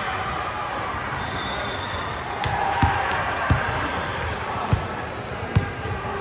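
A basketball being bounced on the court floor: about four separate thuds in the second half, unevenly spaced, over a steady background noise.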